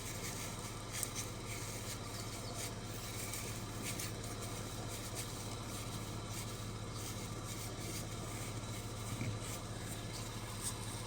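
Lexus RX 300's V6 engine idling as a steady low hum, with a few faint scattered rustles and light clicks from hands handling a cloth.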